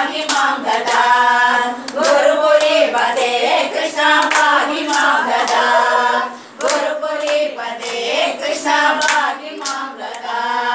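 A group of women singing a devotional song together, clapping their hands in a steady rhythm to keep time.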